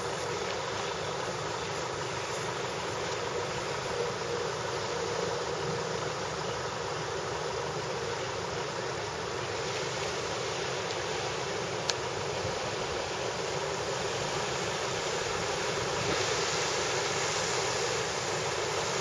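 Toyota Hilux pickup's engine running steadily as the truck drives through a muddy puddle, with the hiss of water around it that grows a little brighter near the end; one sharp click partway through.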